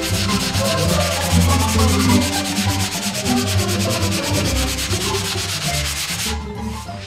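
Hand sanding block with 80-grit paper pushed back and forth over body filler on a car's quarter panel, a steady scraping that levels the filler for primer. It stops about six seconds in.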